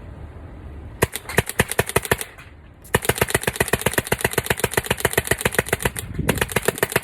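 Rebuilt Inception Kryptonite autococker paintball marker firing rapid strings of shots: a short burst about a second in, then a long, even string from about three seconds, broken briefly near the end. The string is nice and smooth and quick.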